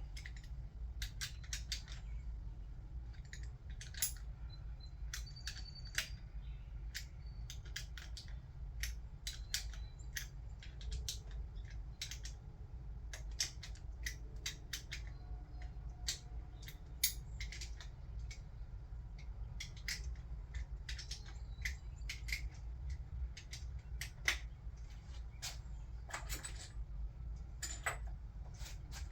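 Hand ratchet clicking in short, irregular runs as the camshaft bearing cap bolts on a Toyota 2JZ cylinder head are run down snug, over a steady low hum.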